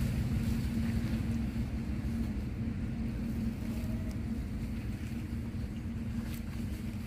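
A motor running steadily, a low rumble with a constant hum, with a few faint ticks near the end.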